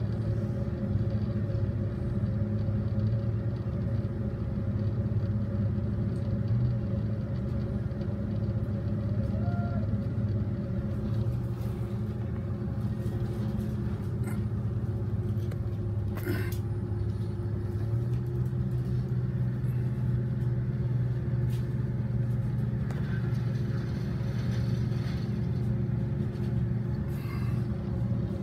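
Bucket truck's engine running steadily at one speed, a low hum that shifts slightly about eighteen seconds in. A single sharp knock sounds about sixteen seconds in.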